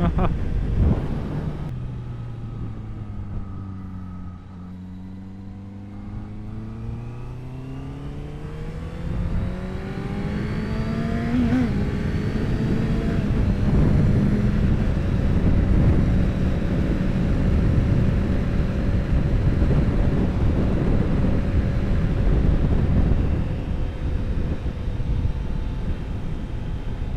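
Exhaust of a Honda CBR650F inline-four fitted with an Ixil aftermarket exhaust, heard while riding. The engine note falls to low revs for a few seconds, then rises steadily as the bike accelerates, and from about halfway holds a steady pitch at cruising speed. Wind rushes over the microphone, growing with speed.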